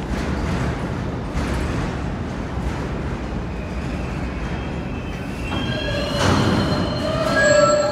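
Subway refuse train of garbage-bin flatcars rolling past, wheels rumbling and knocking over the rail. From about halfway, the wheels begin to squeal in several high steady tones that grow loudest near the end.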